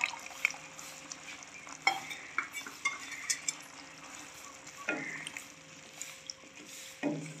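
Wooden spatula stirring minced meat and potato cubes in a metal pan, with several scattered scrapes and knocks against the pan, over the sizzle of the simmering mixture.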